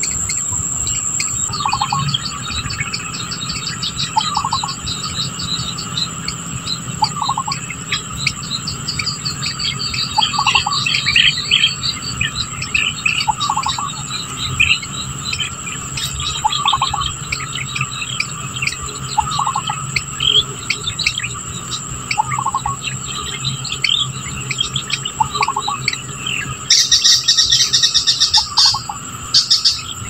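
Wild birds and insects calling together. A steady high insect trill runs under a short bird call repeated about every three seconds and scattered chirps and tweets. A loud, dense insect buzz comes in for a couple of seconds near the end.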